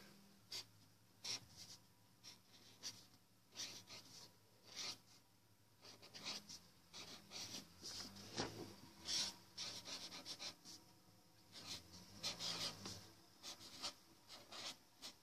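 Pen scratching on paper in short, irregular strokes: faint handwriting.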